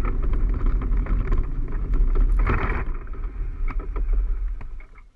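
Onboard sound of a gravity soapbox cart rolling down tarmac: a low rumble with wind buffeting the microphone and scattered knocks and rattles from the cart, fading out near the end.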